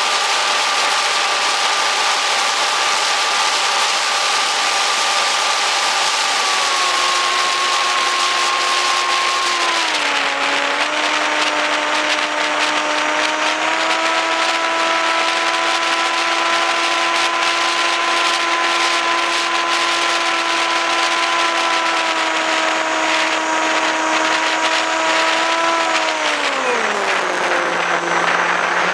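Small electric RC flying wing's motor and propeller whining steadily over heavy wind rush, heard from a camera on the airframe in flight. The whine steps down in pitch about six seconds in, again around ten seconds, then falls steeply near the end as the motor slows.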